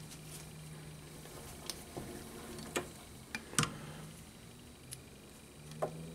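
Scattered light metallic clicks and clinks of a chuck key and jaws being handled at a metal lathe's chuck, the loudest about midway, over a faint low hum.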